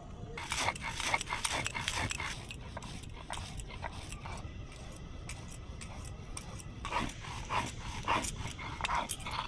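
Stone roller grinding dry-roasted whole spices (coriander, cumin, dried red chillies, bay leaves) on a flat stone grinding slab (shil-nora). The strokes make repeated gritty scraping and crunching, dense in the first couple of seconds and again in a second spell near the end.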